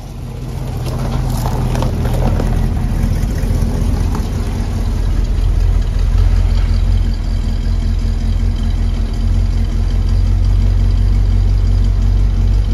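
1958 Buick Roadmaster's V8 running as the car creeps past at low speed: a loud, steady low exhaust rumble that builds over the first couple of seconds. It is running on a cracked driver-side exhaust manifold that leaks.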